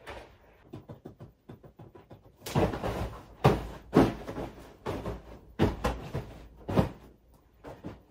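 Soft thumps and rustling on a duvet-covered bed as a cat pounces after a feather wand toy that is being swept across the covers. Faint light clicks come first, then about half a dozen sharper thumps in the second half.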